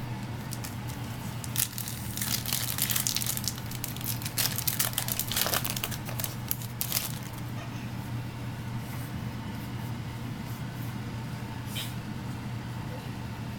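Booster pack wrappers crinkling and rustling in hands in a burst of crackles over several seconds. A single click follows later, over a steady low hum.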